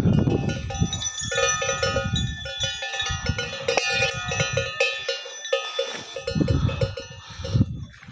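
Cowbells on passing domestic cattle clanking and jangling, several clanks a second, with a low rumble beneath.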